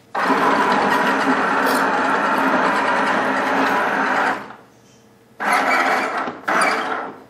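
Omnibot 2000 toy robot's geared electric drive motors running with a grinding mechanical noise as it turns and drives forward: one run of about four seconds, a pause of about a second, then two shorter runs close together.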